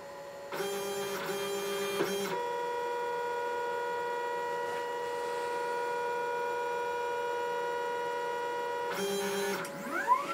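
LulzBot Mini 3D printer's stepper motors moving the tool head through its automatic bed-levelling routine, probing the corners of the bed. Steady whines at several pitches change as different axes move, then near the end rising and falling whines come as the motors speed up and slow down.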